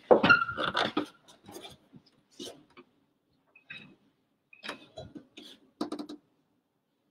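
Scattered clicks, knocks and light clinks of altar vessels being handled on the altar, typical of the cleansing of the vessels after communion. A cluster of knocks in the first second, then sparser taps.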